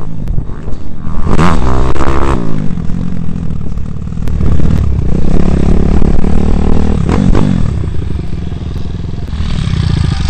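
Pit bike's single-cylinder four-stroke engine heard from onboard: a short rev about a second and a half in, then low running and idling as the bike slows to a stop.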